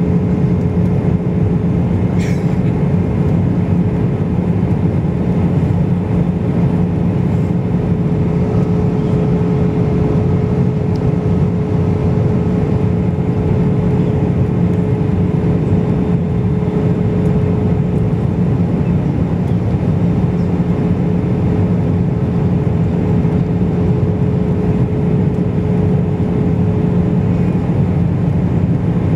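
Cabin noise of an Airbus jet airliner in flight, heard from a window seat by the wing: a steady, deep rush of jet engines and airflow. A steady hum runs under it and fades out near the end.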